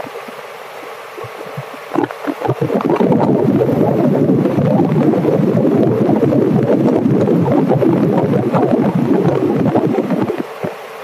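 A hot-air balloon's propane burner firing in one long, loud blast, starting about two seconds in and cutting off near the end.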